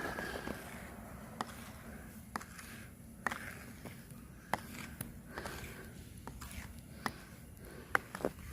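Snow scraper working snow and ice off a car, faint scraping broken by scattered sharp clicks and knocks about once a second.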